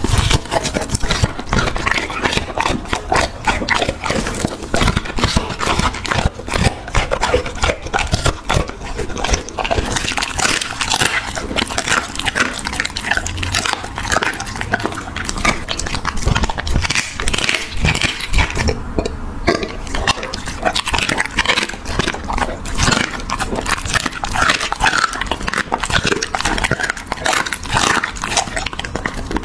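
Large dog chewing raw chicken with the bones in, chicken feet included, close to a microphone: a long run of wet chewing with irregular crunches and cracks as the raw bones break, pausing briefly about two-thirds of the way through.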